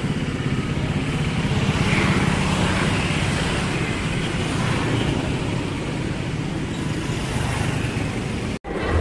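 Street traffic of motorcycles and scooters, a steady drone of small engines running and passing. It drops out briefly near the end.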